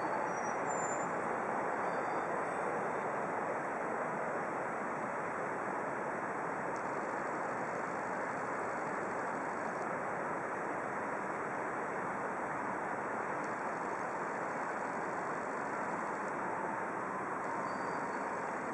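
Steady, even wash of distant city road traffic, with no single vehicle standing out.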